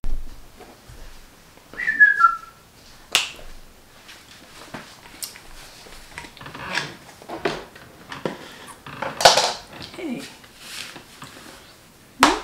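A brief whistle-like squeak falling in pitch about two seconds in, then scattered knocks and rustles of people moving about on a sofa, with a sharp knock near the end.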